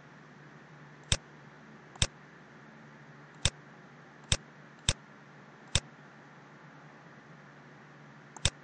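Computer mouse button clicking, about seven single sharp clicks at irregular intervals, with two close together near the end, over a faint steady hum.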